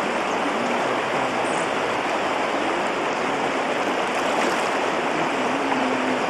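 River water rushing steadily past, an even, unbroken roar of current.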